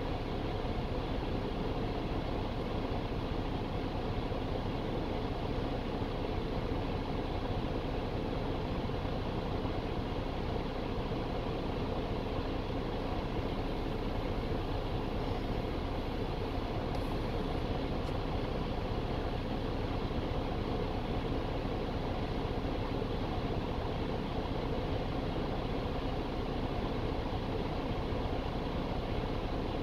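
Steady low rumble of motor-vehicle engine noise, unchanging throughout, with a faint hum running through it.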